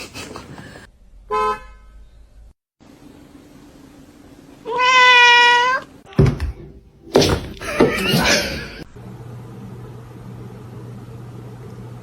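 A house cat meowing: a short call about a second in, then one loud, drawn-out meow lasting about a second near the middle, holding a steady pitch. A few noisy knocks and rustles follow, and then a steady low hum.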